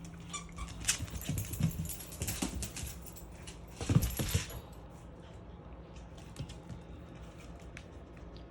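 American bully dog moving about and rummaging, with scattered clicks and rattles and a short louder burst about four seconds in, after which it goes quieter with only a few faint ticks.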